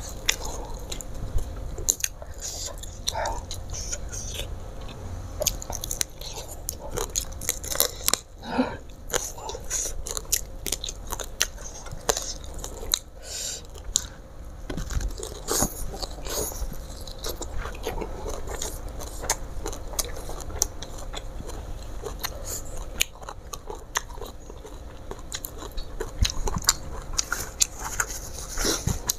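Close-miked eating of crisp fried Mozambique tilapia (ikan mujair) and rice by hand: irregular chewing with many short crunches and mouth clicks.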